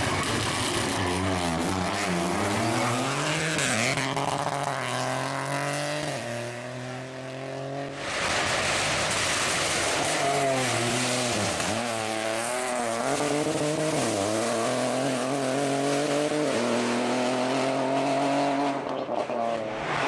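Peugeot 208 Rally4's turbocharged three-cylinder engine revving hard as the rally car drives past at speed, its revs climbing and dropping repeatedly. The sound changes abruptly about eight seconds in, when a second pass begins.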